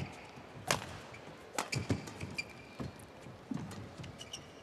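Badminton rally: sharp racket strikes on the shuttlecock, roughly one a second, with brief squeaks of court shoes between them.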